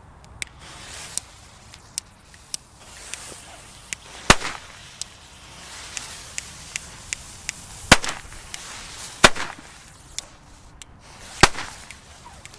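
Nico China Cracker firecrackers going off one after another: about twenty sharp cracks at uneven intervals, four of them much louder than the rest.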